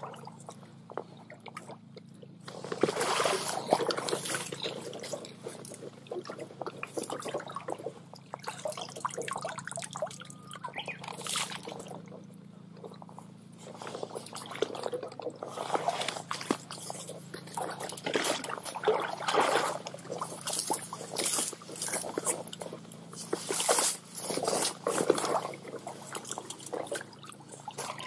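Water splashing and sloshing in irregular bursts as a hand net is swept through a shallow stream, starting about two and a half seconds in.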